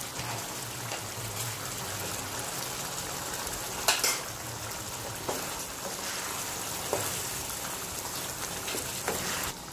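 Pork menudo stew simmering in a pan: a steady bubbling sizzle with a few faint pops. One sharp click stands out about four seconds in.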